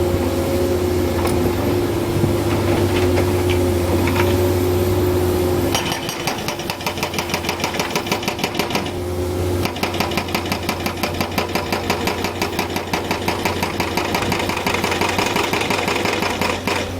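Heavy construction machinery: an engine runs with a steady hum, then about six seconds in a fast, even hammering starts at several strokes a second. The hammering breaks off briefly about three seconds later and then resumes.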